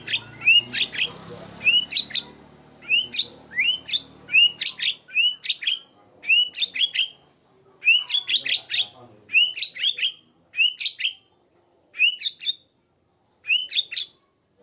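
White-rumped shama singing a repeated phrase about once a second: a short rising whistle followed by a quick run of sharp, high notes. The phrases come with short pauses between them in the second half.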